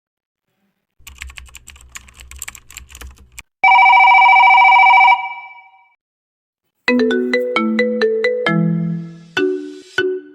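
Mobile phone ringtone: a loud steady electronic ring tone for about a second and a half, then a short melody of plucked notes. Soft clicking comes before it, and a sharp click near the end.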